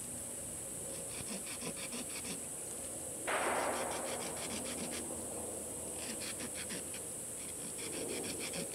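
Small folding-knife saw blade rasping through a standing sapling, in three short spells of quick back-and-forth strokes. About three seconds in, a louder rushing scrape that fades over about a second.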